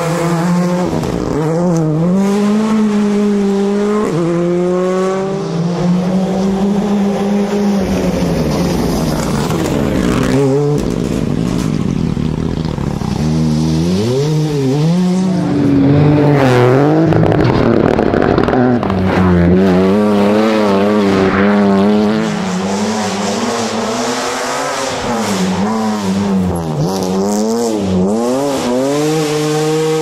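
Rally cars driven hard on a stage, one after another, among them a Hyundai i20 N Rally2. Each engine note climbs and drops again and again as the drivers rev up through the gears and lift for corners, loudest about halfway through.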